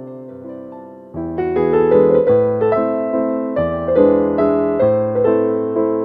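Background piano music: quiet held notes, then about a second in a fuller, louder passage of notes struck roughly twice a second.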